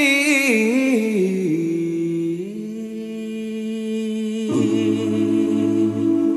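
Two male voices singing a cappella without words: a descending run, then long held closing notes in harmony. A lower voice joins the chord about four and a half seconds in.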